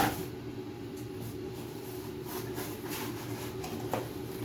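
Steady low background hum with several even tones, with a click right at the start and a faint knock about four seconds in.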